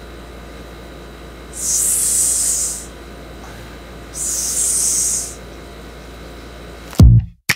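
A woman imitating a snake's hiss: two drawn-out "sss" hisses, each a little over a second long, about two seconds apart. Music with a drum-machine beat cuts in near the end.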